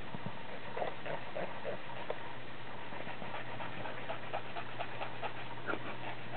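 Bulldog breathing through its nose in a string of short snuffles, a few a second, while it lies limp and relaxed during a nail trim, over a low steady hum.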